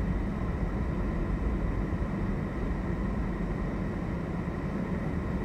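Steady low rumbling background noise with a faint steady hum above it.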